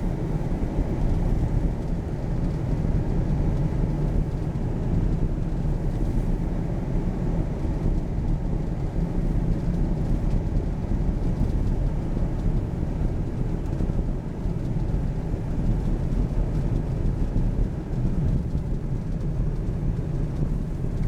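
Steady road and engine noise of a car driving at speed, heard from inside the cabin: an even low rumble with no distinct events.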